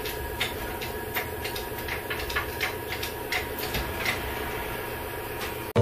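Irregular light clicks and knocks over a steady background hum with a few faint steady tones, with no regular rhythm.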